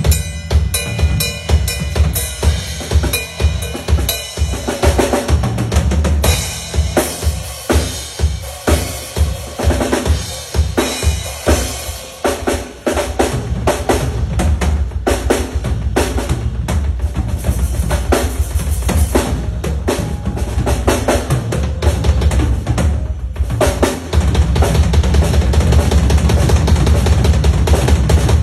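Drum kit played solo: separate bass drum and snare hits at first, breaking about halfway into a dense, rapid run of strokes that gets louder near the end.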